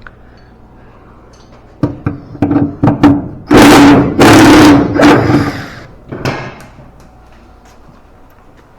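Pneumatic impact wrench hammering in a few short bursts, then two longer runs of about a second each, loosening a nut. It fades out about two-thirds of the way through.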